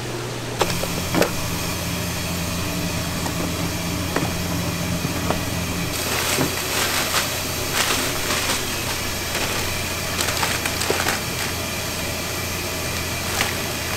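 Clear plastic bag crinkling and rustling as it is handled and gathered around boxes, over a steady low hum. Before the crinkling starts, about six seconds in, there are only a few light knocks.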